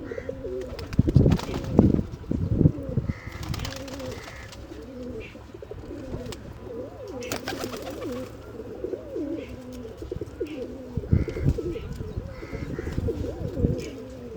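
Pigeons cooing over and over, the low warbling coos following one another without a break, with a few louder sudden noisy bursts mixed in, about a second in, near 2 s, around 7–8 s and near 11 s.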